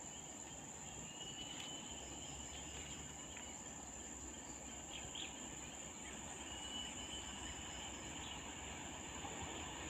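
Steady high-pitched drone of insects, with a few faint, short whistled calls.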